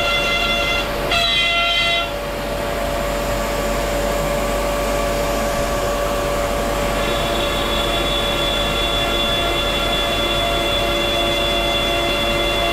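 CNC milling machine's spindle running and cutting, a steady whine made of several held tones. The pitch shifts about a second in, then the higher tones fade and return about halfway through.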